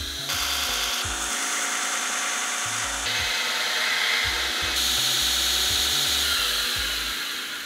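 Electric metal belt grinder running with steel held against the belt, a steady gritty grinding that knocks the burrs off freshly cut steel pieces. The sound shifts abruptly a few times as the piece is worked.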